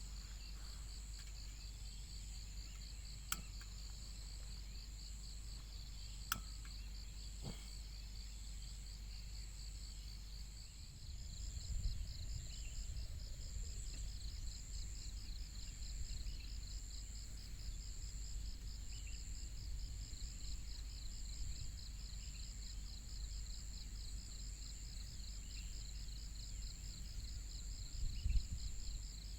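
Crickets trilling steadily in fast, even pulses, with a higher insect hum above them. A low wind rumble on the microphone rises about a third of the way in, and there are two sharp clicks early on.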